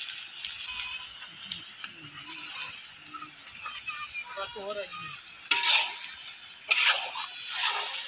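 Meat frying and sizzling in an iron wok over a wood fire. A metal spatula scrapes and stirs in the pan three times in the second half.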